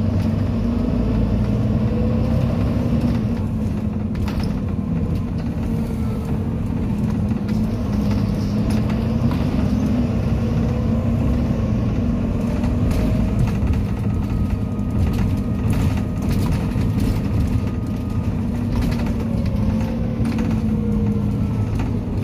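On board a moving Volvo B9TL double-decker bus: the diesel engine drones, its pitch rising and falling as the bus speeds up and slows, over a steady road rumble. Short rattles from the bus's body come through, most around four seconds in and between about fifteen and eighteen seconds.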